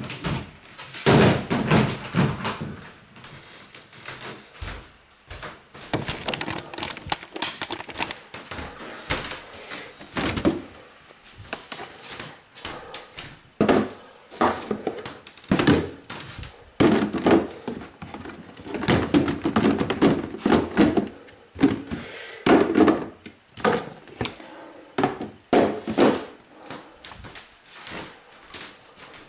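Moving boxes and plastic storage crates being handled and stacked: irregular thuds and knocks, some in quick clusters.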